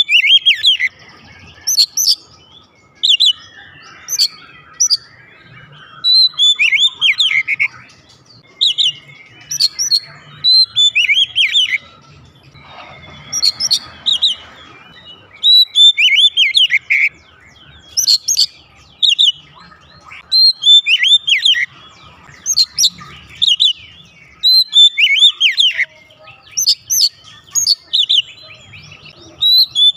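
Oriental magpie-robin singing loudly: short phrases of clear whistled notes that swoop and slur, repeated every couple of seconds with brief pauses between them.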